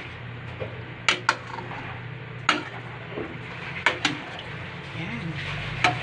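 A metal spoon stirring and tossing cabbage and macaroni in a metal cooking pot, clinking sharply against the pot's side and rim every second or so.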